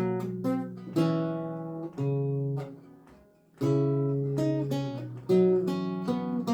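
Lute music: plucked chords and single notes, each ringing out and fading, with a brief pause about three seconds in before the playing resumes.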